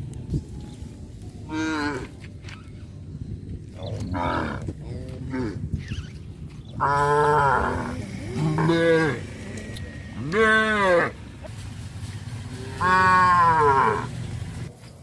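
Cattle mooing, about seven calls: short, fainter ones in the first half and longer, louder moos in the second half.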